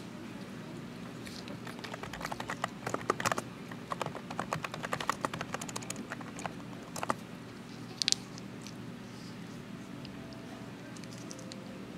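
Quick light clicks and crinkles from hands working at a desk, close to the microphone, thickest for several seconds in the first half, then one sharp click. Under them runs a steady low hum.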